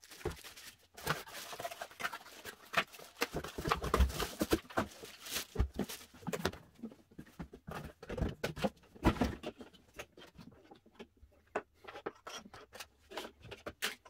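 Handling noise from unpacking plastic vacuum cleaner parts from a cardboard box: irregular rustling, scraping and light knocks of plastic against cardboard and a wooden tabletop.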